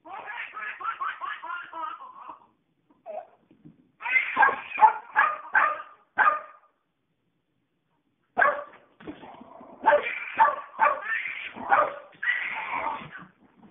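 A baby laughs in three long bursts of rapid giggles, mixed with a puppy's yaps.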